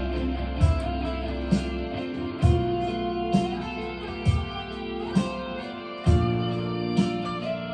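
Harley Benton Fusion-T electric guitar with EMG pickups played along with a backing track of drums and bass. A kick drum lands about once a second under held bass notes.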